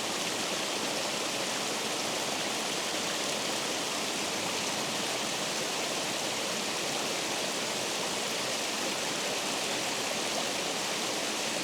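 Water rushing steadily over a dam spillway, a constant even roar of falling water.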